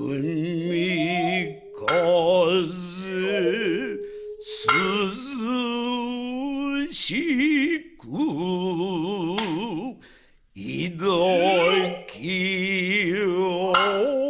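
Music led by singing: long held notes with a wavering vibrato, sung in phrases with short breaks between them.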